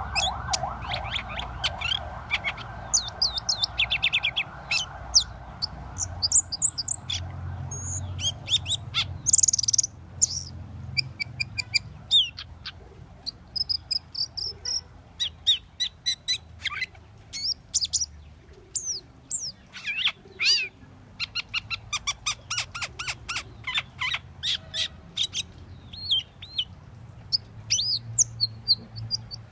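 Asian glossy starling singing: a fast, varied run of sharp whistles, chirps and clicks with short pauses between phrases. A steady pulsing buzz lies underneath for the first third and fades out.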